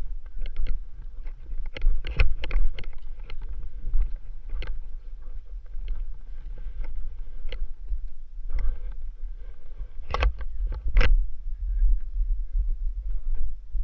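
Wind buffeting the microphone in a low, uneven rumble, with scattered sharp knocks and scrapes, the loudest about two seconds in and again about ten to eleven seconds in.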